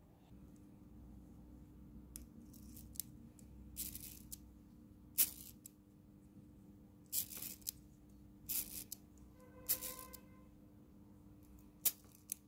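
Reassembled clock movement being worked by hand while it is tested: irregular small metallic clicks and scrapes from its levers and gears, about a dozen in all, with a brief ringing tone about ten seconds in.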